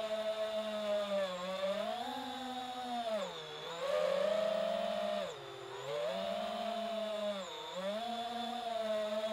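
FPV quadcopter's brushless motors whining steadily; the pitch dips and climbs back about four times, most deeply around the middle, as the throttle is eased off and opened up again.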